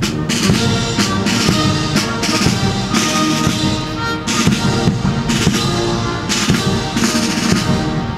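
Military band of brass and woodwind striking up a quick march, with a steady bass drum beat under the tune.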